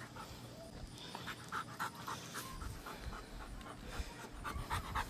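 Male Rottweiler panting steadily, a quick run of short breaths, winded from his walk.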